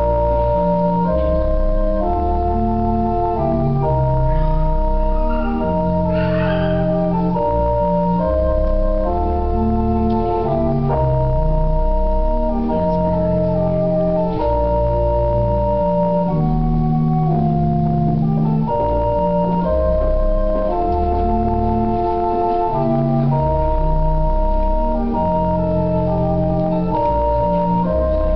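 Organ playing slow held chords over a moving bass line.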